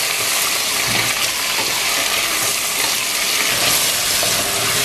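Chopped tomatoes, onions and garlic sizzling steadily in hot oil in an aluminium pressure cooker while being stirred with a wooden spatula.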